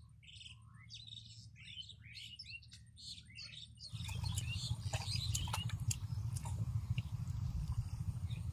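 Small birds chirping in quick, repeated short calls over a faint low rumble. About four seconds in, the sound turns louder: splashes and squelches of hands digging in shallow muddy water over a stronger low rumble, with birds still chirping.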